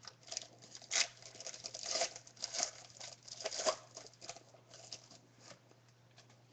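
A trading-card pack's wrapper being torn open and crinkled by hand, in a quick run of irregular crackles and rips that thin out near the end.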